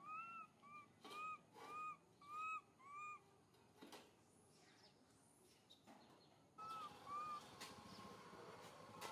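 Young long-tailed macaque giving short high coo calls, each rising then falling: six in quick succession over the first three seconds, then two more later. They are contact calls from an infant calling for its mother.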